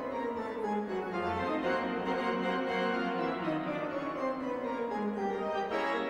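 Pipe organ music: a flowing passage with a line of notes stepping downward, moving to new chords near the end.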